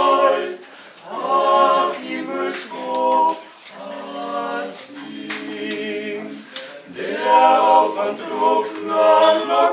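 Male vocal quartet singing a cappella in harmony, in held phrases with short breaks between them.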